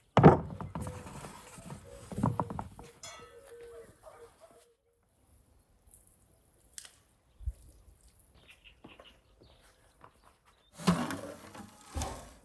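A large round metal baking pan clanks and scrapes as it is set down on a wooden stump, with a loud knock at the start and another about two seconds in. It is then mostly quiet with a few small clicks, and a burst of scraping and clatter comes near the end.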